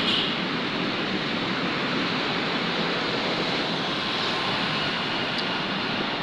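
Steady, noisy rush of road traffic, cars and motorcycles passing, made louder by the echo under a road flyover. A short sharp sound comes right at the start.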